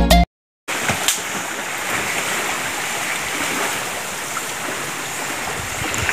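Steady, even rush of river water washing at the sandy shore, with no tones in it.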